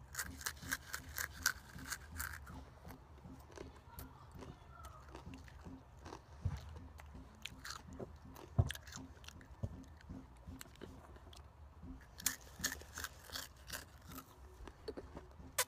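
Takis rolled tortilla chips being crunched and chewed with an open mouth close to the microphone: quick runs of sharp crunches in the first couple of seconds and again about three quarters of the way through, with softer, scattered chewing and smacking between.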